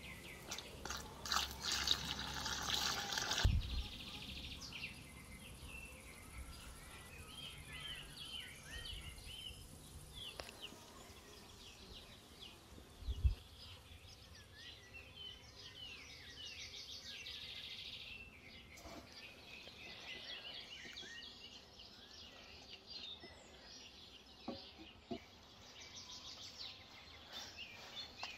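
Small birds chirping and twittering outdoors. In the first few seconds there is a louder rustling of a hand working flour and dough in an enamel bowl, and a single dull thump comes about halfway through.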